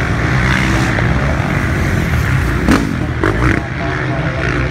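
Motocross dirt bikes running on the track, a steady engine drone, with a couple of sharp knocks a little past halfway.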